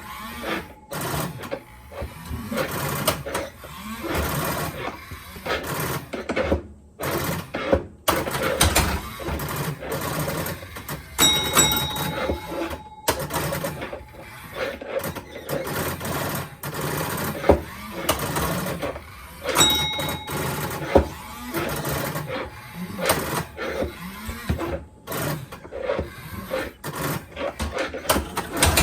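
1957 Genco Motorama electromechanical driving arcade game running: a dense, continuous clatter of clicking relays and mechanisms, with a steady tone sounding three times for about a second and a half each.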